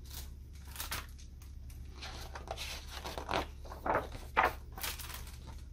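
Pages of a large picture book being flipped and turned by hand: a run of short papery rustles and flaps, a few louder ones near the middle.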